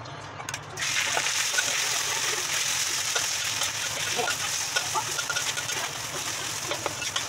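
Ground pork sizzling in hot oil in a wok, a steady hiss with small crackling pops that starts suddenly about a second in as the meat hits the oil.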